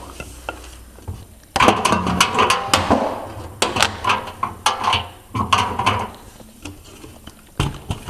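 Hard plastic parts of a washing machine being handled and pushed back into place: several bursts of rattling and clattering with sharp clicks, starting about a second and a half in, with one more click near the end.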